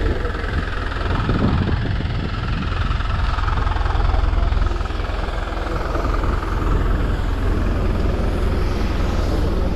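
Steady engine rumble of aircraft and vehicles running on an airport apron.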